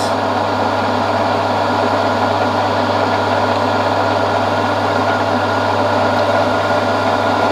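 Milling machine running, a loud steady motor hum that does not change.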